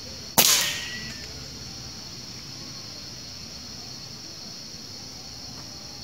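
A single rifle shot about half a second in, sharp and loud, with its echo dying away within about half a second. A steady high insect buzz runs underneath.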